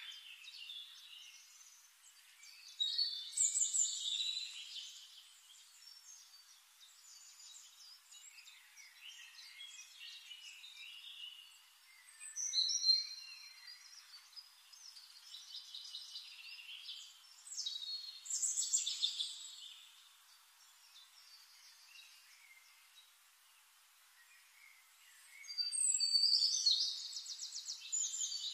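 Forest birds singing: chirping and warbling song phrases in several louder bursts a few seconds apart, with quieter chirps between, the loudest near the end.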